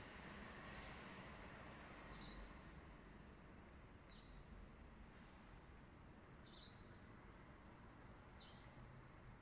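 Near silence with a faint background hiss, broken by a bird's short, high chirps, five of them, about every two seconds.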